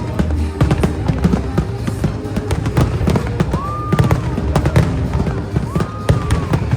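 A fireworks display firing densely, with rapid bangs and crackling over the show's music soundtrack. Whistles rise and fall twice, about a second long each.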